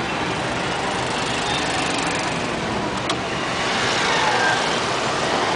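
Steady engine and road noise heard from inside a small car moving through dense city traffic, with motorcycles passing close by. A single sharp click about three seconds in.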